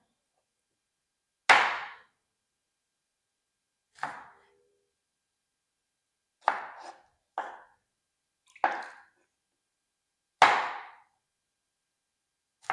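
Kitchen knife cutting through peeled green cooking bananas and striking a wooden cutting board: about seven separate knocks, a second or more apart, with a quick pair midway.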